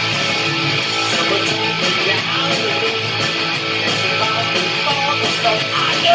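Electric guitar strumming chords in a fast, steady rock rhythm.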